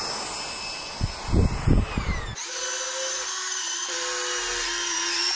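A 90 mm electric ducted fan whining at a steady high pitch, with wind gusting on the microphone about a second in; the whine sags as the fan winds down. Then small electric landing-gear retract motors whine in several short runs.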